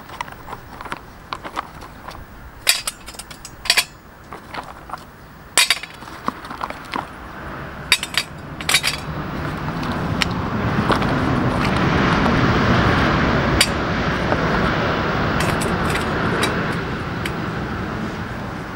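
Small wooden sticks dropped into a stainless steel wood gas stove, knocking and clinking several times. From about eight seconds in, a passing KTX high-speed train swells up, loudest around twelve seconds, then fades.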